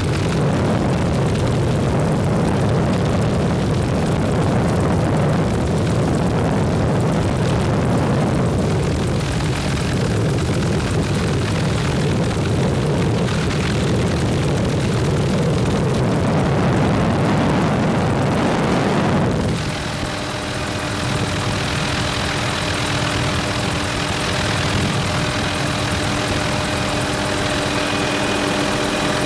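Helicopter cabin noise in flight: a loud, steady drone of rotor and engine. About two-thirds through the sound shifts, a little quieter, with several steady whining tones over the drone.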